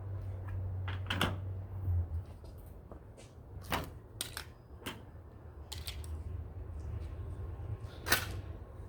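Scattered sharp clicks and knocks, about six of them, from hand work on roof rack parts, over a steady low hum; the loudest knock comes near the end.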